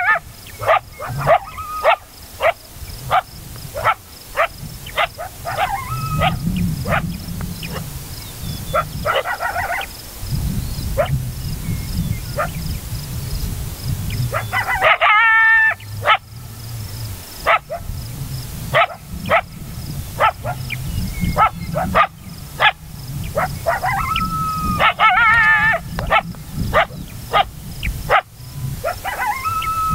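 Coyote barking again and again, short sharp barks about once a second, broken twice by longer wavering yip-howls, one near the middle and one about 25 seconds in. Low wind rumble underneath.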